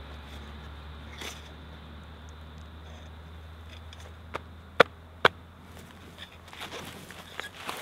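A logger's tape being pulled out and hooked on the end of a felled log: a few sharp clicks, the two loudest about half a second apart midway, over a steady low hum, then rustling footsteps in brush near the end.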